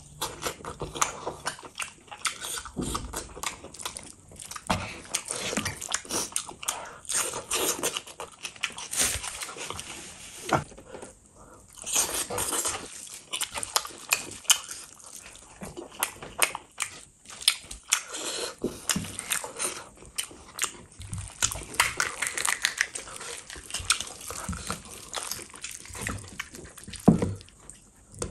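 Close-miked eating sounds of a person chewing spiced mutton and rice: irregular wet chewing, lip-smacking and squelching, with one sharper, louder smack about a second before the end.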